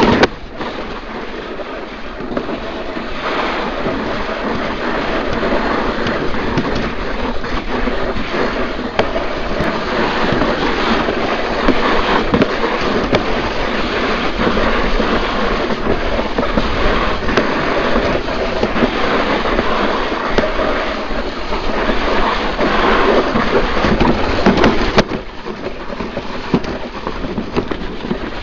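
Summer toboggan sled running down its trough track: a continuous noisy rumble of the sled in the trough, building over the first few seconds and dropping suddenly about 25 seconds in.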